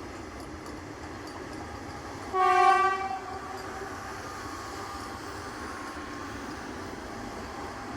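Train horn sounding one short blast, about a second long, a couple of seconds in, over the train's steady running rumble.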